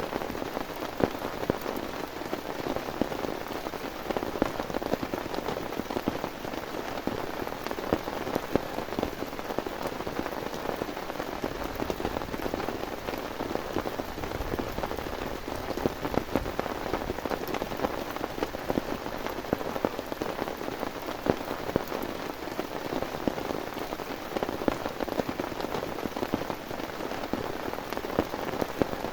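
Heavy rain falling steadily, a dense hiss made of countless separate drop hits on a nearby surface.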